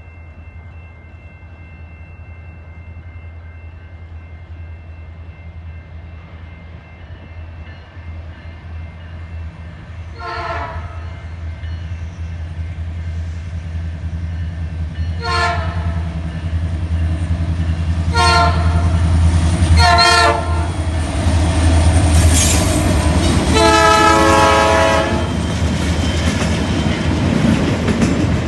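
A freight train approaching behind two diesel locomotives, the engines' rumble growing steadily louder. The locomotive horn gives four short taps, at about ten, fifteen, eighteen and twenty seconds in, then one longer chord a few seconds later. Near the end the freight cars roll past with the clatter of wheels on the rails.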